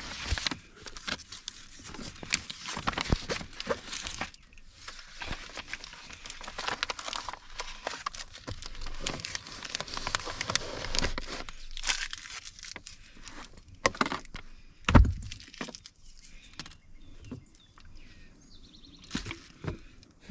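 Crinkling and crackling handling noise with many sharp little clicks, and one loud thump about fifteen seconds in.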